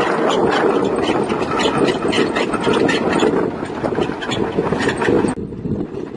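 Komatsu D31 bulldozer's diesel engine running, with a busy crackling clatter over the engine sound; the higher part of the sound drops off abruptly about five seconds in.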